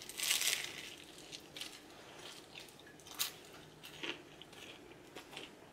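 A bite into a cheeseburger in the first half-second, followed by faint chewing with a few small mouth clicks.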